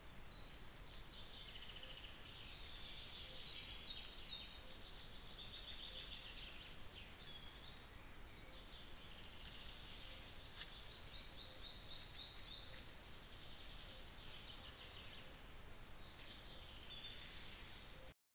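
Faint songbird song: several short trills of rapid repeated high notes, clearest around three to four seconds in and again around eleven to thirteen seconds in, over a steady hiss.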